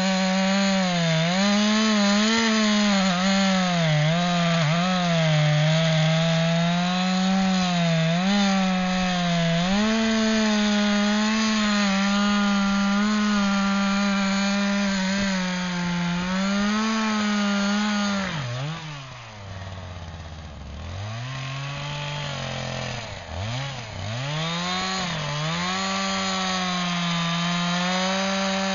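Two-stroke chainsaw running at full throttle while cutting into a big beech, its pitch wavering as the chain loads up in the cut. About two-thirds of the way through the engine speed drops sharply and rises and falls a couple of times, then the saw is back at full throttle near the end.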